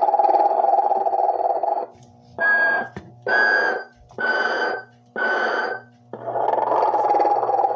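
Recorded snoring from a vintage Telco animated Mr. and Mrs. Santa Claus figure pair. A long rattling snore is followed by four short whistling puffs about a second apart, then another long rattling snore begins, all over a steady low electric hum.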